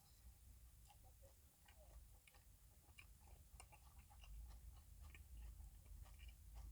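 Faint chewing and wet mouth clicks of a man eating a saucy burger, scattered irregularly over a low steady rumble.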